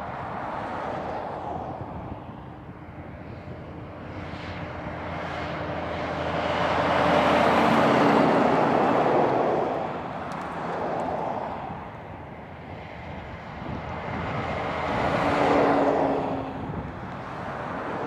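Road vehicles driving past on a highway: engine and tyre noise swells as each one goes by, loudest about eight seconds in and again near fifteen seconds in.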